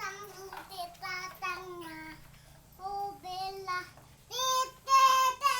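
A young child singing or sing-song vocalising in a high voice: short phrases of varying pitch, with longer held notes near the end.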